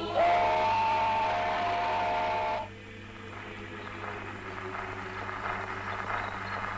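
A loud held tone of a few pitches together that slides up as it starts, holds steady for about two and a half seconds and cuts off suddenly, followed by a quieter crackling hiss.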